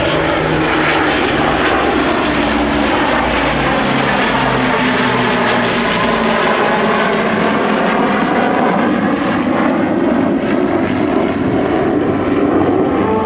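Avro Lancaster, with its four Rolls-Royce Merlin piston engines, and Tornado GR4 jet flying past together in formation: a loud, steady engine drone whose pitches slowly drift as the aircraft pass.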